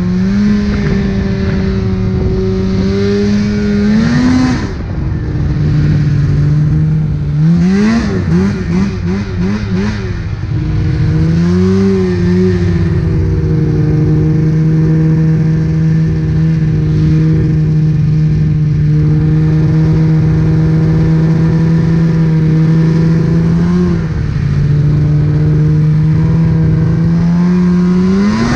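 Snowmobile engine running under way at a mostly steady pitch, rising and falling a few times as the throttle changes. About a third of the way in, the pitch wobbles quickly up and down for a couple of seconds, and it rises again near the end.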